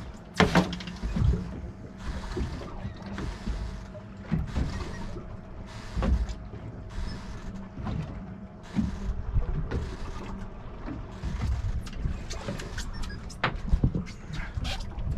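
Wind and water noise aboard a small fishing boat, surging and easing about once a second over a faint steady hum, with a few sharp clicks and knocks of fishing tackle being handled.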